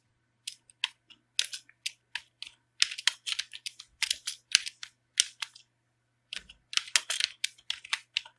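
Typing on a computer keyboard: quick, irregular key clicks in short runs, with a brief pause a little past the middle.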